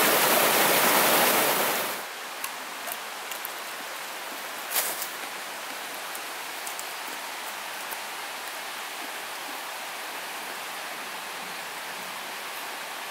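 Mountain river rushing loudly over rocks and through a small rapid, cutting off suddenly about two seconds in. After that comes a much quieter steady hiss, broken by a few faint light clicks and knocks.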